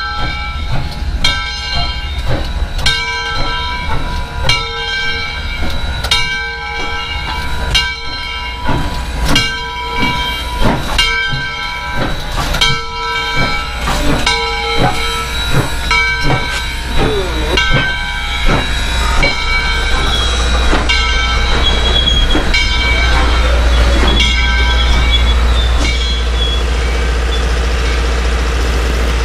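Steam locomotive No. 630 rolling slowly past as it pulls its passenger train in, its bell ringing with a stroke about every half second. Over the last several seconds the strokes fade and the steady low rumble of the passenger cars rolling by takes over.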